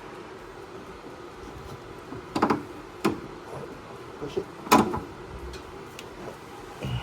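Metal clunks and knocks of a suspension lower control arm and its bolt being pushed and worked into place: a few separate sharp knocks, the loudest about two-thirds of the way in.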